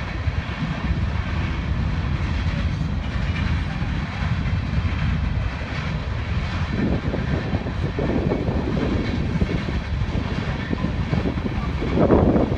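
Steady low rumble of a freight train passing in the distance.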